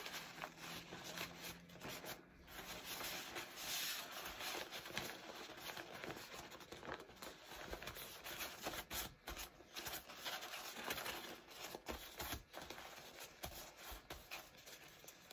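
Blue sterilization wrap rustling and crinkling as it is folded and creased by hand, with irregular soft scrapes as the hands smooth it down.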